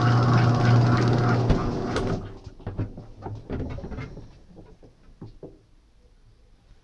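Washing machine motor running with a strong steady hum and a churning rattle, cutting off abruptly about two seconds in, followed by a few fading knocks and clicks.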